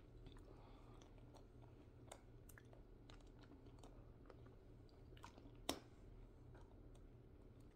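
Near silence: faint room hum with scattered soft clicks and small handling noises, and one sharper click a little before six seconds in.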